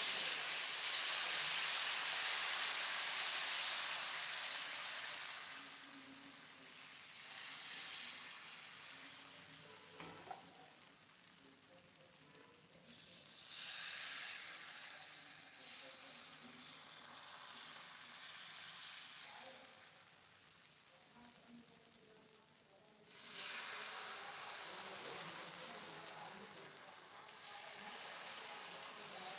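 Moong dal chilla batter sizzling on a hot tawa. The hiss is loudest at the start, just after the batter is poured, then dies down. It flares up again twice as more batter is ladled on, about 13 s in and again about 23 s in.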